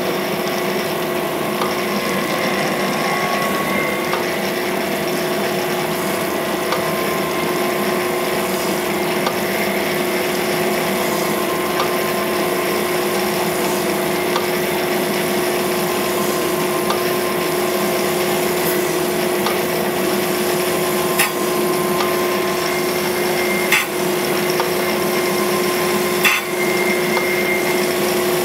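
Cam grinder running with its wheel grinding a solid roller camshaft's lobe under flowing coolant: a steady machine hum over an even wash of coolant and grinding noise. A few short ticks come in the last third.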